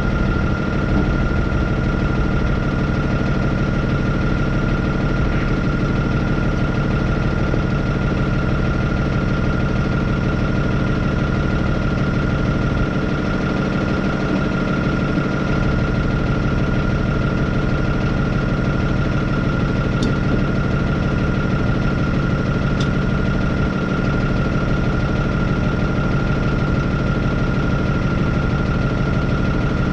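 Hino truck's diesel engine idling steadily with a steady high whine above it, run to build brake air pressure while alcohol thaws ice in the air-brake lines.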